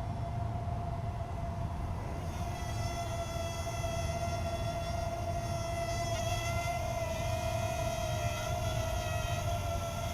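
Parrot Mambo mini drone's propellers buzzing steadily in flight, a whining tone that wavers slightly in pitch and grows brighter about two seconds in. A low rumble runs underneath.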